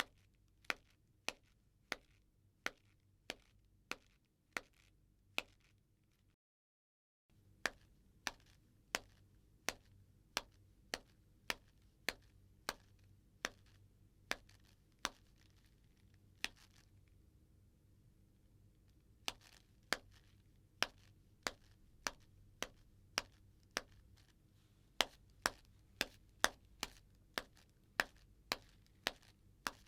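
Footsteps of a woman walking in chappals, each step a sharp slap of the sandal on a hard floor, about one and a half steps a second. The steps break off briefly a few seconds in and pause for about three seconds midway, then carry on.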